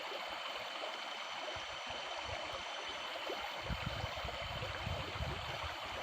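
Steady rush of flowing water, like water running through a rice-field channel, with some low rumbling about halfway through.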